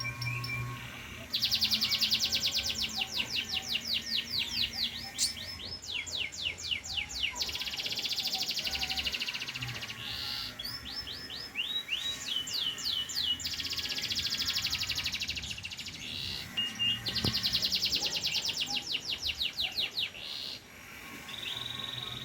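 Domestic canary singing: a string of long rolling trills, each a few seconds of rapidly repeated high notes, switching to a different note and speed from one trill to the next.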